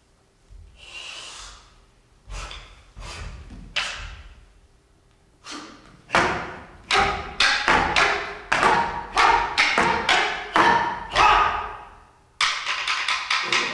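Wooden sticks and a long staff knocking against each other and the stage floor: a few scattered knocks, then a quick, even run of sharp hits about three a second, pausing briefly near the end before starting again faster.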